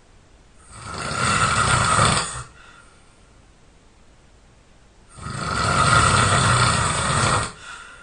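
A person snoring loudly in sleep: two long snores, each about two seconds, about four and a half seconds apart, each ending in a short fainter breath.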